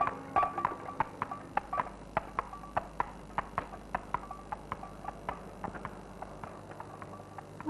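Horse's hooves clip-clopping at a walk on a paved road as it pulls a cart: a steady run of sharp clops, two or three a second.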